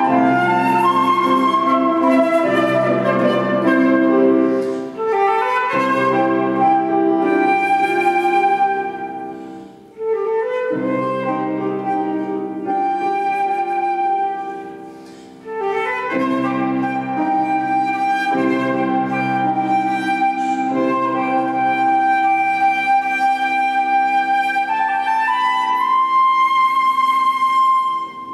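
Flute and grand piano playing a classical piece together, with two brief breaks between phrases. The piece closes on a long held flute note that dies away at the very end.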